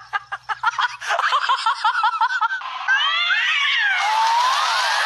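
Cat meowing and yowling in short repeated calls, then longer calls that rise and fall in pitch. Music comes in about four seconds in.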